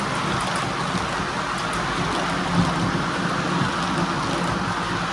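Model freight train rolling past on the track: a steady rumble and rattle of many wagon wheels running over the rails and turnouts.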